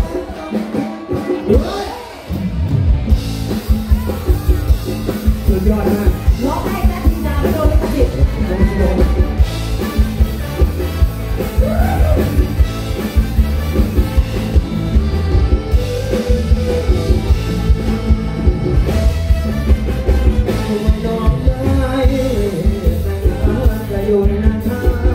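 Live band playing through the PA: a male singer over electric guitar, bass and drums. The full band comes in about two seconds in with a steady beat.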